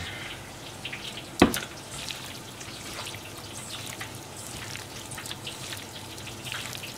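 Hands squishing and mixing marinated chicken pieces with flour in a stainless steel bowl, over faint crackling of frying oil. A single sharp click about a second and a half in is the loudest sound.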